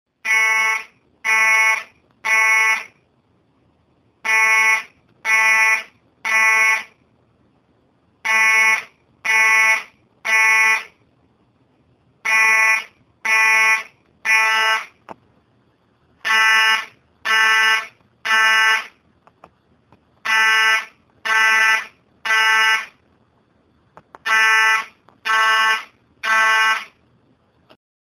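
School fire alarm horn sounding in a buzzy tone. It gives three blasts of about half a second each, pauses, and repeats the group about every four seconds. This is the temporal-three evacuation signal.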